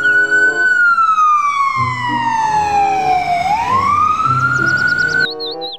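Ambulance siren wailing: a slow rise in pitch, a long fall over about three seconds, then rising again before it cuts off abruptly near the end. Light background music plays under it.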